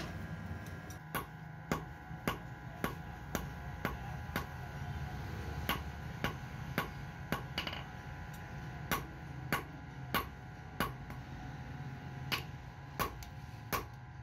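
Hand hammer striking a red-hot iron rod on a steel anvil block: sharp metal blows about two a second in short runs with brief pauses, over a steady low hum.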